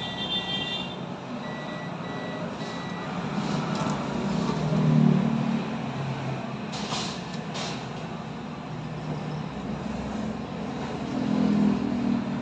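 A high electronic beep repeating about twice a second, stopping about three seconds in, over steady background hiss. A low rumble swells up twice.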